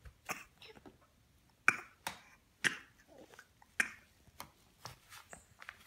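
A baby eating banana in a high chair: a string of sharp smacks and clicks, roughly one a second, the loudest about two seconds in.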